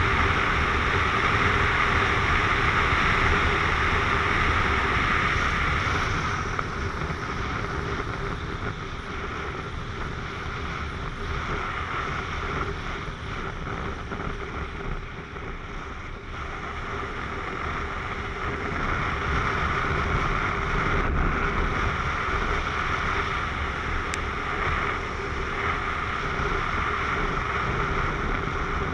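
Wind rushing over a helmet-mounted camera on a Yamaha MT-09 motorcycle at road speed, with the bike's three-cylinder engine running steadily underneath. The wind eases about six seconds in and grows louder again past the middle.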